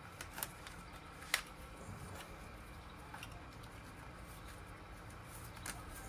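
A few faint clicks and light taps, the sharpest about a second and a half in, from gloved hands handling the plastic fuel return pipes and clips on top of diesel injectors.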